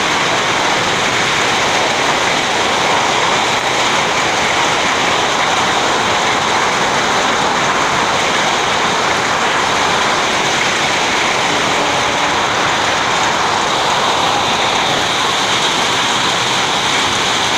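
Very heavy rain pouring down in a steady, unbroken rush.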